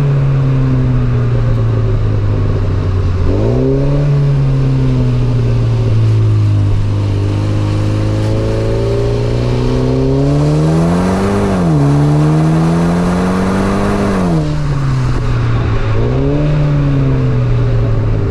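2023 Mini Cooper S's turbocharged four-cylinder engine under way, its note rising and falling through several gear changes: the pitch jumps up quickly a few times, and after a slow climb midway it drops sharply at an upshift, then falls again as the throttle eases.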